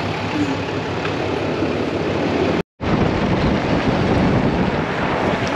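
Pickup truck engine and road noise while driving, steady with a low pulsing hum. About halfway through the sound drops out completely for a moment, then returns as louder, rougher road and wind noise.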